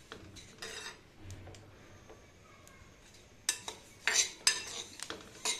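Metal spoon scraping and clinking against a kadhai as white sesame seeds are stirred while dry-roasting. The strokes are irregular, with the loudest cluster a little past halfway.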